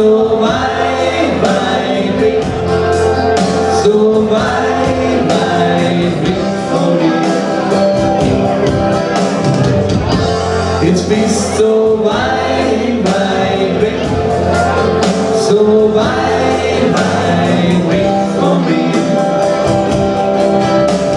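Live band playing an Austropop song: guitars and a drum kit, with a man singing lead into the microphone.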